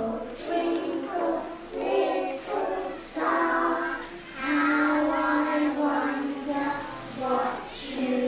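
A group of young children singing a song together in unison, in phrases with long held notes.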